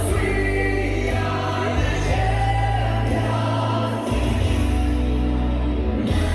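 Music with singing voices over sustained bass notes.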